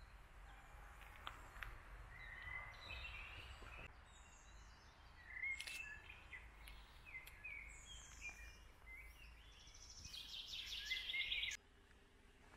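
Faint songbirds singing in woodland: short whistled phrases and chirps from more than one bird, with a fast trill near the end that is the loudest part, over a low steady rumble. The sound cuts off abruptly shortly before the end.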